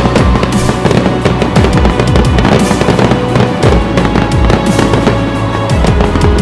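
Fireworks exploding and crackling in a dense, unbroken barrage, mixed with loud music carrying held notes and a low beat.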